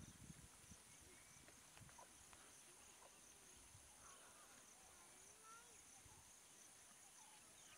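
Faint insect chorus: a steady high buzz with a pulsing chirp repeating a few times a second, and a few faint bird calls over it.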